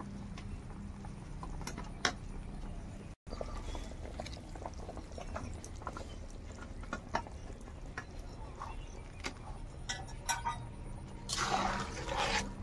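Fried fish pieces going into curry gravy boiling in a large aluminium kadhai, with scattered clinks and knocks of a steel plate and spatula against the pan over a steady low bubbling. Near the end, a short burst of scraping and sloshing as the spatula stirs the pan.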